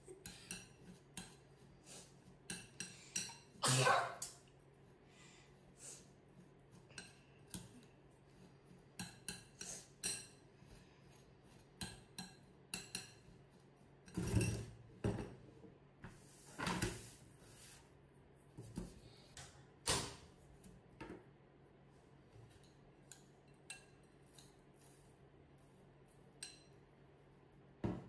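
Metal spoon scraping and clinking against a glass mixing bowl while stirring a crumbly biscuit-crumb mixture, in irregular strokes with a few louder clinks.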